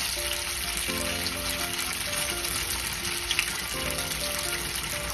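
Cubes of firm tofu frying in hot oil in a nonstick pan: a steady sizzle, with background music underneath.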